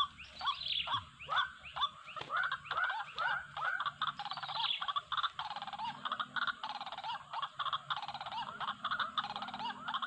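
White-breasted waterhens (wak-wak birds) calling: a string of croaky, curved notes, a few a second, that thickens about four seconds in into a dense, rapid chorus.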